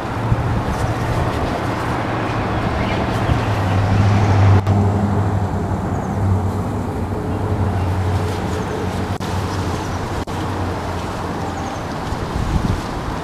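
A steady, low engine hum, like a motor vehicle or road traffic close by. It swells to its loudest about four to five seconds in, then eases.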